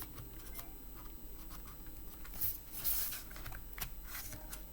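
Light plastic clicks and scraping as the battery of a Lenovo ThinkPad T450s is unlatched by its two tabs and slid out of the laptop, with a cluster of louder scrapes about two and a half to three seconds in.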